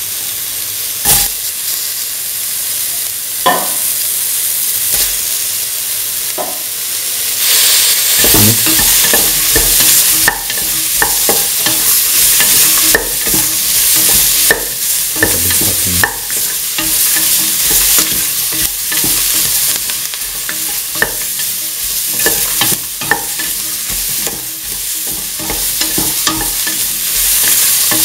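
Cauliflower florets, onion and peppers sizzling in hot oil in a steel pan. A spatula scrapes and knocks against the pan as they are stirred, the sizzle growing and the stirring getting busier about eight seconds in.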